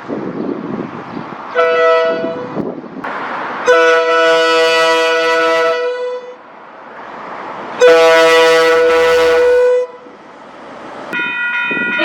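Train horn sounding a short blast, then two long blasts of about two seconds each, with rushing noise between them. Near the end a different-pitched horn begins.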